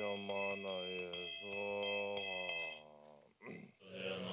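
Tibetan Buddhist ritual music: horns sound two long low blasts while a bell rings, struck about three times a second. It breaks off about three seconds in, and chanting of a mantra by several voices starts near the end.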